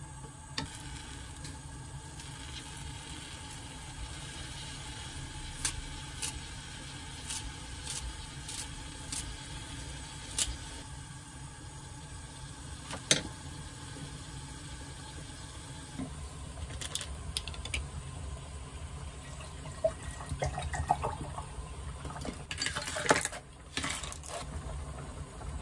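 A pot of pork-bone soup bubbling at a simmer, with a wooden spoon knocking the pot now and then. Near the end, ice cubes clatter into a glass.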